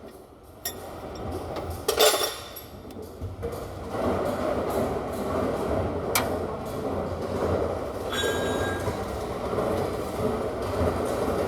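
Light metal clinks and a sharp knock, then a steady mechanical running sound starts about three and a half seconds in and carries on at an even level.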